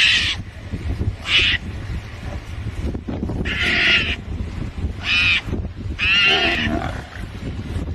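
Harsh, high-pitched defensive screeching from a mongoose under threat from young lions. There are about five calls of under a second each, at uneven gaps, the last ones longer and wavering in pitch.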